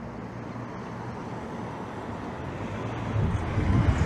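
Cars driving past on a town road, and near the end a Triumph Spitfire's four-cylinder engine grows louder as the car passes close by.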